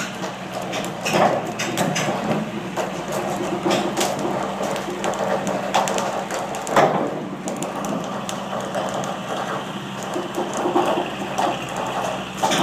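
Steel-wheeled transfer carts carrying the whaleship Charles W. Morgan rolling slowly along shipyard rails: irregular clicks, knocks and creaks over a steady low hum.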